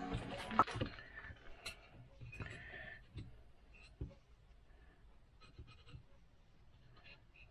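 Background music ending in the first second. Then quiet handling of wooden pieces, with light knocks, and a pencil scratching short marks on the pine near the end.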